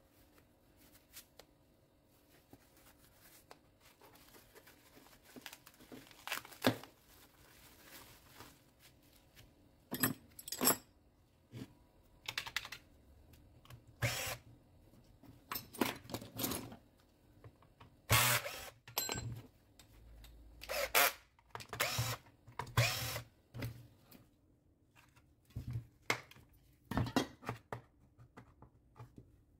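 Irregular clicks, knocks and rattles of hands handling the Makita GA9020 angle grinder's plastic housing and small metal parts and tools, sparse at first and busier from about ten seconds in.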